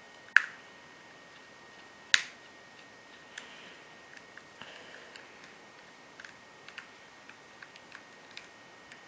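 Small metal repair tools clicking and tapping against an iPhone 3GS during handwork. Two sharp clicks come in the first couple of seconds, then scattered light ticks.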